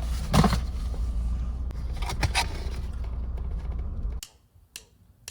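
Steady low rumble inside a vehicle's cabin with a few short rustles and knocks. It cuts off suddenly about four seconds in, leaving a few faint clicks.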